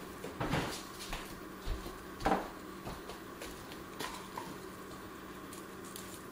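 A few scattered light taps and clicks of kitchen knives, hands and sliced onion on plastic cutting boards, with quiet stretches between.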